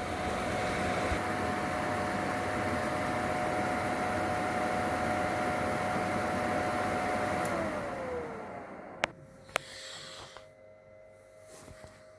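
Milestone Start D microwave digestion system running, a steady rush of fan noise with a hum, which winds down with a falling pitch about seven and a half seconds in. Two sharp clicks follow, leaving a faint steady tone.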